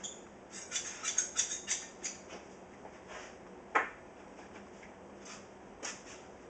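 Work noise from handling the tank's glass panels: a quick run of short squeaky scrapes, then one sharp click a little before four seconds in and a softer one near six seconds.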